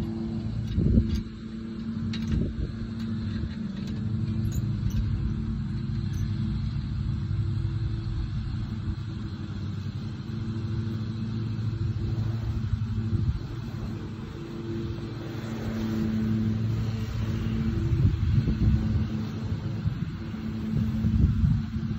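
Engine idling steadily, a low hum with a rumble that swells now and then.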